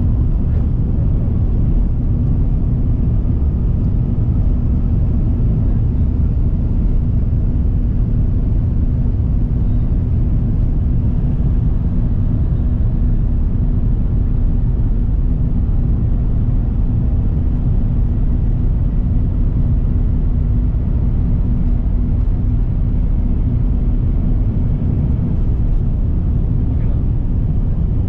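Steady low rumble of a jet airliner's engines and airflow heard from inside the passenger cabin, with a faint steady hum.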